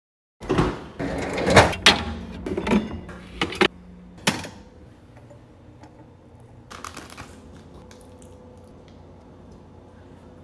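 Kitchen handling sounds: a quick run of sharp knocks and clatters for the first few seconds, then quieter scraping as cooked rice is scooped with a plastic spatula into a ceramic bowl, over a faint steady hum.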